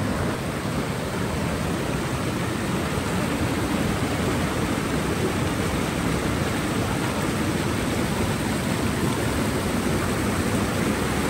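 Steady rushing of a creek running over rocks and small falls, a continuous even roar with no breaks.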